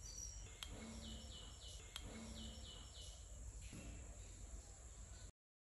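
Faint small-bird chirping: two groups of three quick high chirps, about a second and a half apart, over a steady low hiss. Two sharp clicks come in the first two seconds, and the sound cuts out completely near the end.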